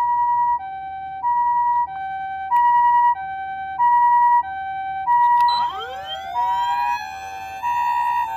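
Japanese ambulance two-tone "pee-po" siren from an Osaka Siren MK-D1 siren amplifier, alternating a high and a low electronic tone about every two-thirds of a second. About five and a half seconds in, a second siren sound sweeps up in pitch and joins, thickening the tone.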